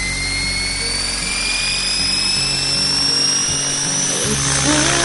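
Radio-controlled helicopter's rotors and motor spinning up on the ground, a whine that rises slowly and steadily in pitch, with background music underneath that becomes clearer near the end.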